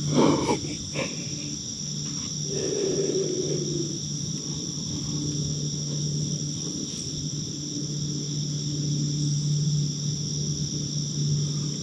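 Steady chorus of crickets and other insects, several high trills layered together without a break, over a low steady hum. A short breathy whisper sounds in the first second.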